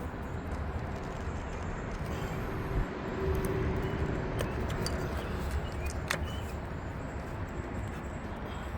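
Steady low outdoor rumble with a few light clicks, as the ignition coil connectors are worked off by hand.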